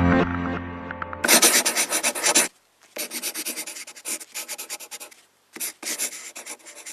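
Quick scratchy rubbing strokes in three bursts with short pauses between, after background music fades out about a second in.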